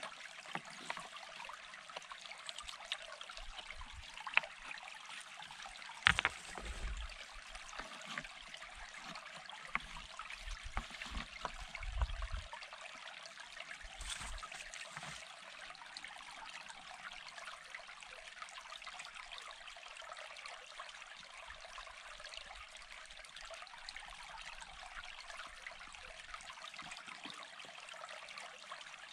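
Steady rushing of a stream, with a few sharp knocks and dull thumps as stones are set onto a dry-stone pillar, the loudest about six seconds in.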